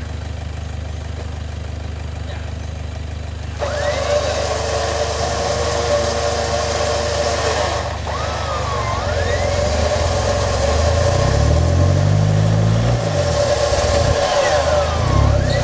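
A truck's winch kicks in suddenly about four seconds in and runs with a steady whine as it hauls a Toyota Hilux Vigo up a muddy slope. The truck's engine drones underneath and revs up in the second half.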